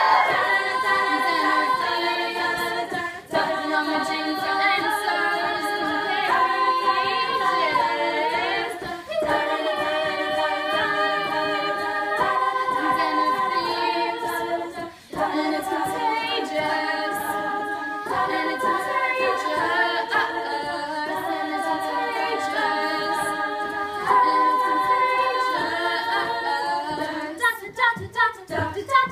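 All-female a cappella group singing in close harmony, holding chords that shift every second or so, with short breaks between phrases. Near the end the singing turns into short, choppy pulses.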